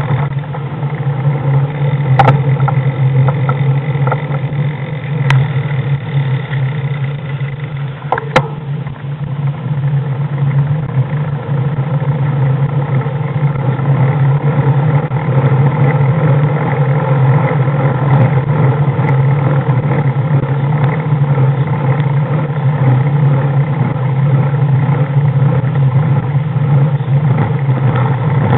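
Engine of the vehicle carrying the camera, running steadily at low speed with an even low hum. A few short clicks are heard in the first nine seconds.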